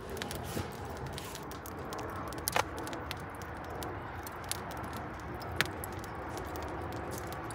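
Maple wood fire burning in a smoker's steel firebox basket: steady crackling with scattered small snaps and two louder pops, about two and a half and five and a half seconds in.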